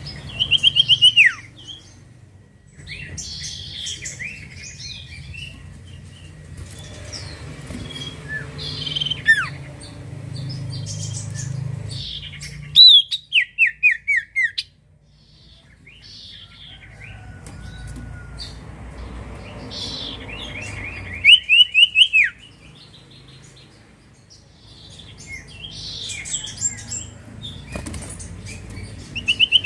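Common iora singing: loud bursts of six to eight quick whistled notes that slide in pitch, each burst lasting about a second and coming four times, with softer twittering chirps in between. A low steady hum runs underneath.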